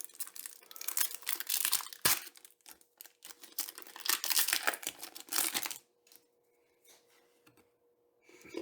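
Foil wrapper of a Pokémon booster pack being torn open and crinkled by hand, in irregular rustling and ripping bursts with a sharp crack about two seconds in. After about six seconds it drops to near quiet with a faint steady hum.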